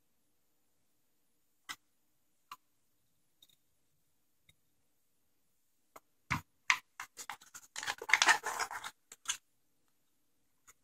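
A few faint clicks, then a run of knocks and crinkling from a small aluminium foil pan as a raw Cornish game hen is set into it and shifted about, loudest about eight seconds in.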